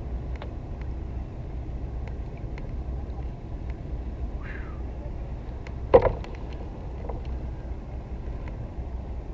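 A steady low rumble with faint scattered ticks, broken about six seconds in by a single loud thump as a large cobia is brought down onto a plastic fishing kayak.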